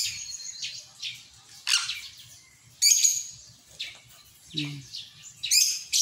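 Sun conures giving short, high-pitched chirping calls, about six separate calls spread unevenly, each quick and falling in pitch.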